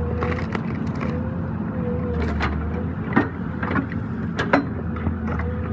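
Excavator engine running steadily under hydraulic load, with a wavering whine that comes and goes, as a stump-splitter wedge rips into a tree stump. A series of sharp cracks of wood and roots splitting from about two seconds in.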